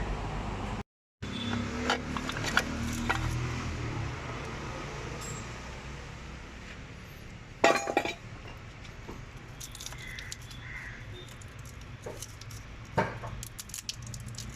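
Metal tools and parts clinking and clicking as they are handled, with two louder knocks, one a little past the middle and one near the end.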